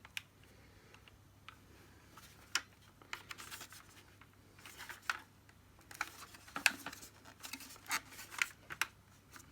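Scattered light plastic clicks, taps and scrapes as hands work at the mesh part of a Dyson DC50 vacuum, trying to prise it out; the part stays stuck.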